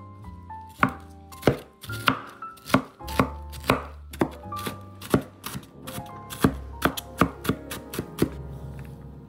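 Cleaver chopping red bell pepper into dice on a wooden cutting board: sharp, separate knife strikes about two a second, coming faster near the end, with soft background music underneath.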